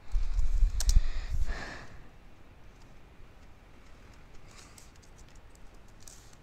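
Typing on a computer keyboard, faint scattered key clicks, with a few loud low thuds in the first two seconds.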